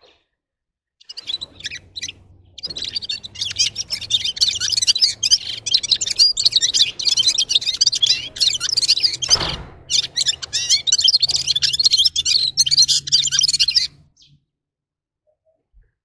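Red-fronted serin (Serinus pusillus) singing a long, rapid, high twittering song that starts about a second in and stops shortly before the end, with one brief break near the middle.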